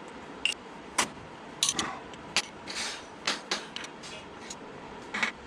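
A series of sharp metallic clinks and knocks, about a dozen and irregularly spaced, from metal engine parts and tools being handled during the teardown.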